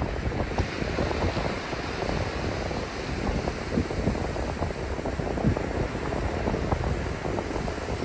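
Ocean surf breaking and washing up over wet sand in a steady hiss, with wind buffeting the microphone in irregular low rumbles.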